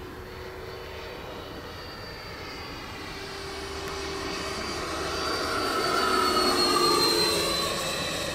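The 90mm electric ducted fan of an FMS Super Scorpion RC jet whines in flight. It grows louder as the model passes close, peaking about six to seven seconds in, then drops in pitch and fades as it flies away.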